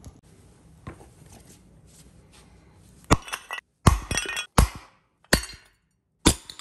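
A hammer striking a cast aluminum fan-motor end cap on concrete to break it up: five sharp metallic clinks under a second apart, starting about three seconds in.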